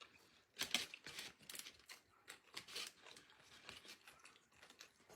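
Food packaging being handled close to the microphone: a run of irregular crinkling and crackling starting about half a second in, loudest just under a second in.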